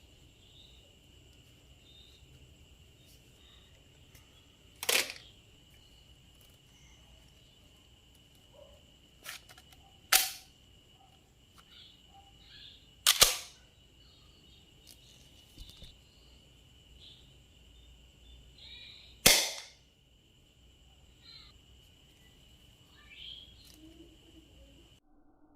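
Nerf gun firing, four sharp loud pops several seconds apart with a smaller click between the first two.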